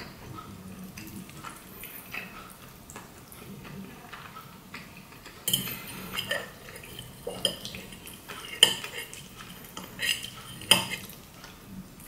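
Metal fork clinking and scraping on a ceramic plate while gathering sauced spaghetti, with soft wet noodle sounds. The clinks are light at first and grow sharper and louder in the second half, with about six distinct clinks.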